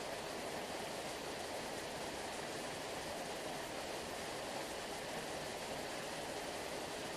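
Sea water rushing in a steady, even wash that sounds like a waterfall, with no single wave standing out.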